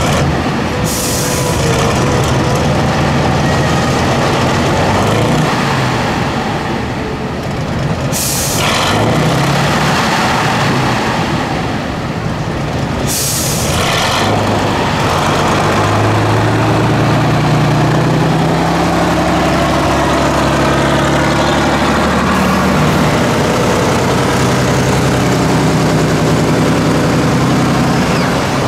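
Diesel engine of an 8x8 Tatra off-road trial truck working under load while crawling through a trench, its revs rising and falling. Three short sharp air hisses stand out, about a second, eight seconds and thirteen seconds in, typical of the truck's air brakes releasing.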